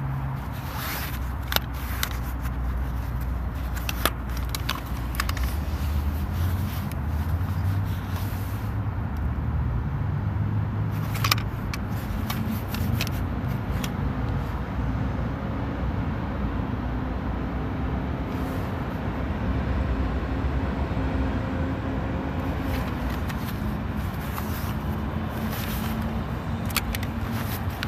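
Steady low rumble of motor vehicles with engines running, with sharp plastic clicks and scrapes every few seconds as a trail camera's case and mounting bracket are handled.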